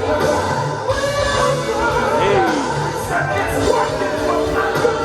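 Music with a singing voice over a steady, repeating bass line.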